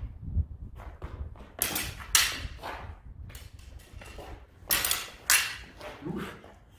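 Steel HEMA sabre blades clashing during sparring: a series of sharp metallic strikes, the loudest in two quick pairs about two and five seconds in, over a low rumble.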